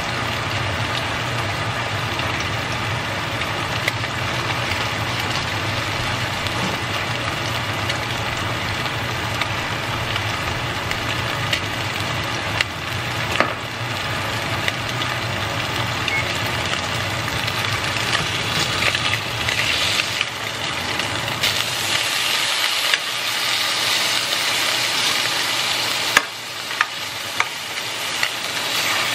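Fish fillets frying in oil and butter in a nonstick skillet, a steady sizzle that grows brighter and louder in the last third, with a few light ticks. A steady low hum sits underneath and fades about two-thirds of the way through.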